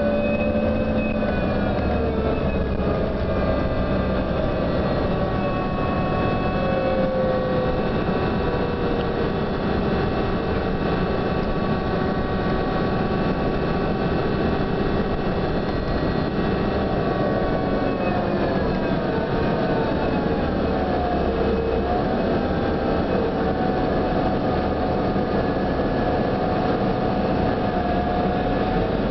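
On board a New Flyer DE42LFA diesel-electric hybrid bus as it travels: a steady rumble overlaid with several whining tones from the drive. About two-thirds of the way through, the whine slides down in pitch and then climbs again as the bus slows and picks up speed. This is the unusual whine that this bus is known for.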